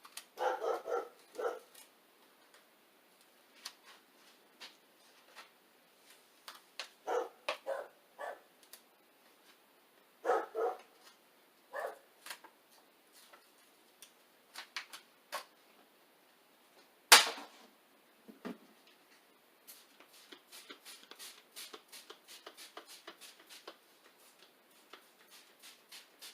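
Dog barking in short clusters of yelps, several times over. About 17 seconds in comes one sharp knock, the loudest sound, and near the end there is a run of quick light clicks.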